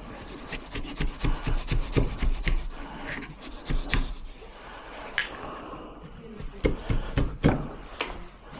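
Hand tools scraping and knocking on a wooden door and its lock fittings, in irregular strokes, with sharp knocks in between.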